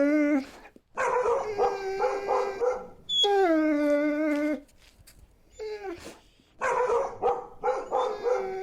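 Siberian husky "talking": a run of about four drawn-out howling calls with short pauses between them. Some calls warble up and down and others slide down in pitch and hold.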